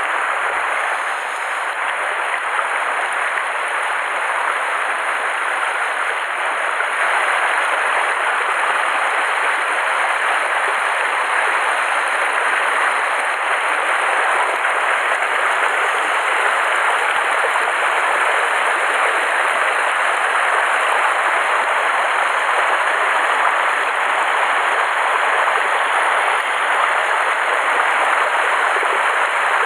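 Shallow mountain stream rushing over rocks and small riffles: a loud, steady rush of water close by.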